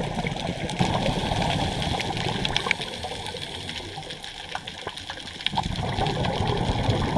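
Scuba diver's regulator bubbles heard underwater: a long stream of exhaled bubbles, a lull of about a second and a half while the diver breathes in, then bubbles again.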